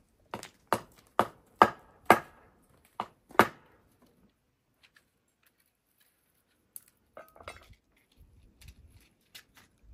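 Footsteps on a stone-paved path, about seven sharp steps roughly two a second that grow louder as they approach. Near the end come small clicks and rustling of firewood sticks being moved in a stone hearth.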